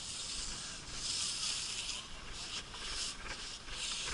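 Sponge staff scrubbing in and out of the bore of a reproduction 1841 field 12-pounder cannon after firing, a rasping swish: one long scrub over the first two seconds, then a run of shorter, quicker strokes.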